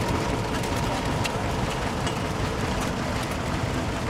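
Vintage stationary engines running steadily, a continuous mechanical rumble with scattered light clicks.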